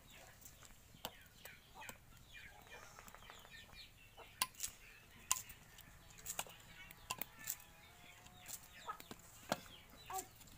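Chickens clucking, with a few sharp clicks near the middle.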